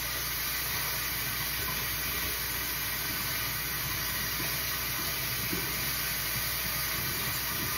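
A steady, even hiss that holds without a break.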